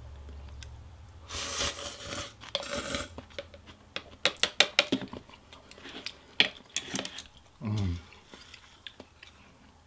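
Rice noodles of pho slurped in two loud pulls, followed by close-miked wet chewing with many sharp clicking smacks, and a brief low hum near the end.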